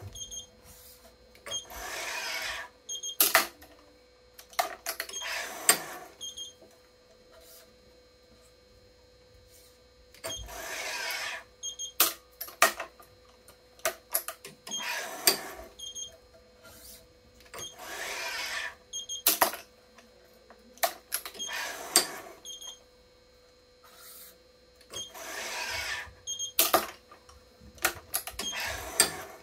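Badminton racket being strung on a Yonex ES5 Pro electronic stringing machine. Every three to four seconds comes about a second of noise as the string is pulled and tensioned, with sharp clicks from the clamps and tension head in between.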